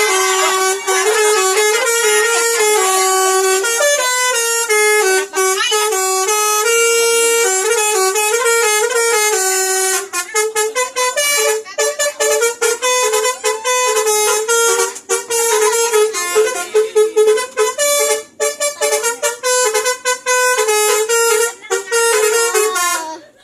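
Telolet horn on a Basyuri bus: a multi-tone musical air horn playing a long, loud melody of stepping notes. About ten seconds in it changes to quick, short staccato blasts, and it stops just before the end.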